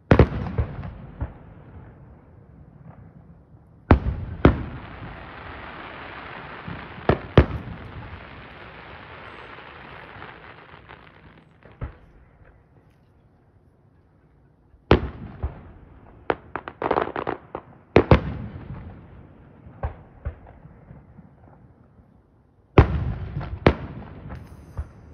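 Consumer fireworks going off in the sky: sharp bangs of shells bursting, in groups separated by short lulls, with crackling among them. A long steady hiss follows the second group of bangs.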